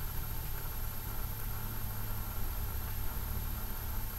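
Room tone: a steady low hum with a faint even hiss.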